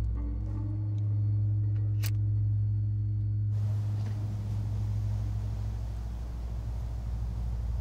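A cigarette lighter clicks once, sharply, about two seconds in, over a steady low drone. A soft hiss comes in about halfway through and holds.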